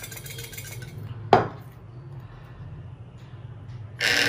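Xóc đĩa chips rattling inside a porcelain bowl clamped over a plate as the pair is shaken, ending about a second in. A single ceramic clack follows as the bowl and plate are set down on the wooden table. Near the end comes a loud hiss-like noise lasting about a second.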